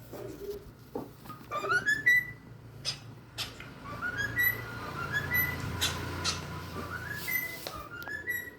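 Pet cockatiel whistling a string of short rising notes that level off high, repeated several times, with a few sharp clicks between the phrases.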